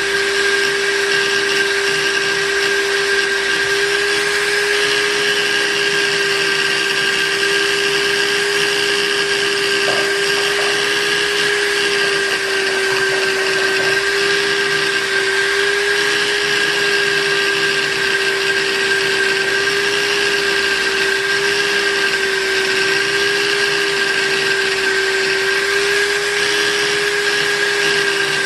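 Electric buffing machine running steadily: a constant motor hum and whine over an even hiss, with no change in speed.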